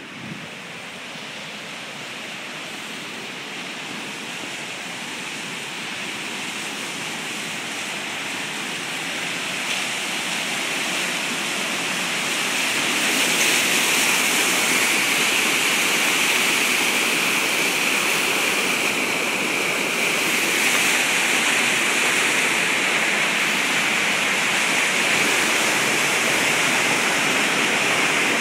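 Rushing whitewater of a waterfall: a steady, even roar that grows louder over the first dozen seconds as the water gets closer, then holds loud and steady.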